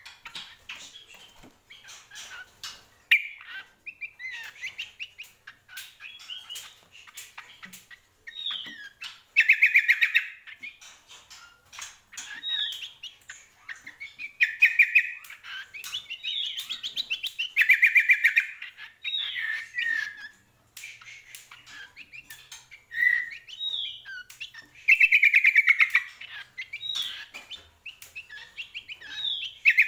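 A caged cucak kombo, a honeyeater, singing in loud repeated phrases: fast high trills and short down-slurred whistles, with sharp clicks between them.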